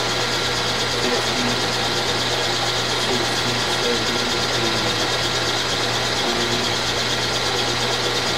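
Milling machine running steadily, its spindle turning a toothed disc cutter with a constant motor hum.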